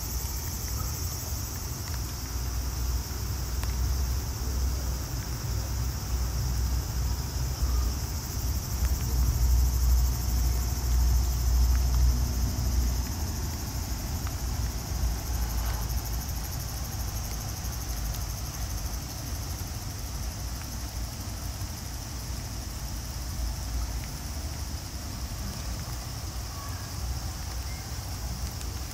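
Insects droning steadily in a high, even band, over a low rumble that swells in the first half and then eases.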